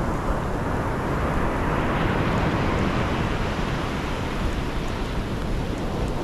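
Ocean surf washing onto the beach, with wind rumbling on the microphone; a wave swells up and fades about two seconds in.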